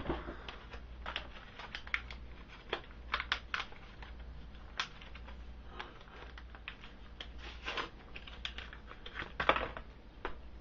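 Card-and-plastic retail packaging being torn open by hand: irregular crackles, snaps and clicks, with a louder flurry near the end as the marker comes free.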